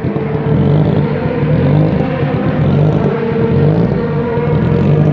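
Rally car's engine running at idle while waiting at the start line of a hillclimb, a steady low note with slight rises and falls in revs.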